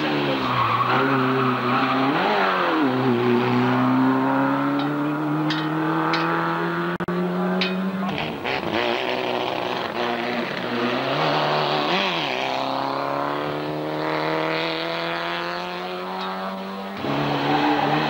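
Small hatchback race cars' engines running at high revs under hard acceleration, the note climbing slowly in pitch. It dips briefly twice and drops sharply about eight seconds in and again near the end.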